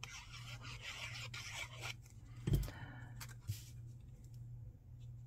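Scratchy rubbing of a glue bottle's tip drawn along cardstock as a bead of liquid glue is run out, then a thump about halfway through and a couple of light taps as the glued paper piece is set down and pressed into place.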